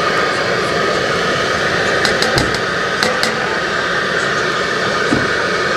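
Steady whir of a brushless electric blower fanning the cooking fire, with a few light clinks about two to three seconds in.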